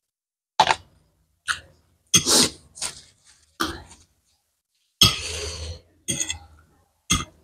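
A woman coughing in a string of short, sharp coughs, with one longer rasping burst about five seconds in, while eating chilli-hot noodles.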